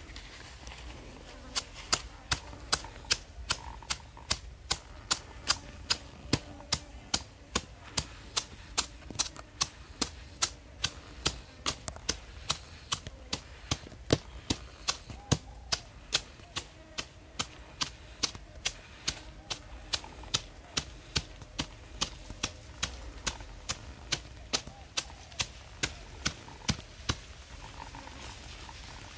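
A wooden stick used as a pestle pounding into a hand-held coconut-shell bowl: sharp, regular knocks about two a second, starting a second or two in and stopping just before the end.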